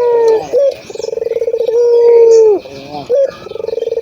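Barbary dove (burung puter) cooing. It gives repeated long calls, each a rapid rolling trill that settles into a held note and falls off at the end, with a short clipped note between calls. One call ends just after the start, a full call fills the middle, and the next begins near the end.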